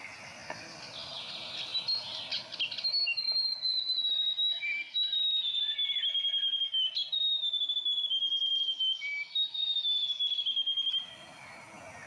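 Grey warbler (riroriro) song: a high, rapidly wavering trill that starts about three seconds in, runs for about eight seconds and slowly falls in pitch. Fainter bird calls are heard before and after it.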